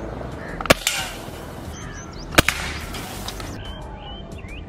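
.177 air rifle firing two shots, about 0.7 s and 2.4 s in, each a sharp crack followed a split second later by a fainter knock.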